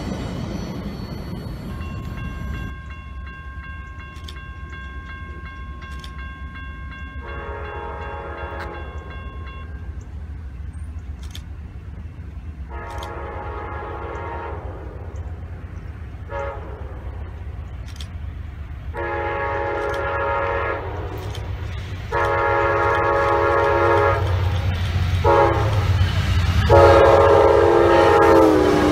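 Amtrak Auto Train's diesel locomotive approaching and passing at speed, blowing its horn in a series of blasts: long, long, short, long, then more long blasts. The last blast drops in pitch as the locomotive goes by, and the train's rumble grows loud near the end.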